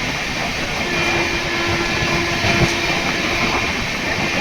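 Indian Railways express passenger train running on the track, a steady rumble of wheels and coaches. A thin steady tone sets in about a second in and fades after a couple of seconds.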